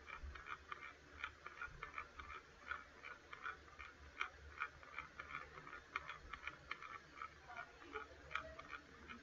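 Faint, irregular ticking and crackling, several clicks a second, over a low steady hum.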